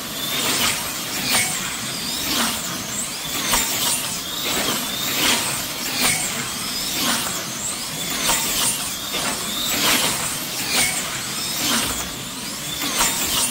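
Electric slot cars racing round a multi-lane banked track: a rapid string of pass-bys, each a short high motor whine that swoops in pitch as a car goes by, about one a second.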